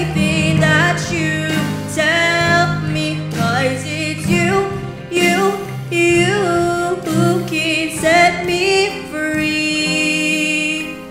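A child's solo voice singing a slow song with instrumental accompaniment, ending on a long held note near the end.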